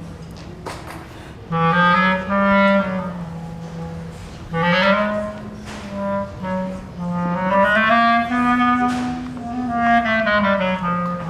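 Solo wind instrument, clarinet-like, playing slow melodic phrases live: four swells about two seconds each, the pitch sliding up and falling back, with the room's reverberation behind them.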